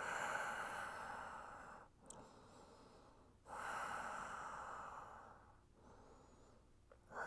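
A man breathing deeply and slowly while holding a seated forward fold. Two long breaths of about two seconds each are separated by a quiet pause, and a third begins right at the end.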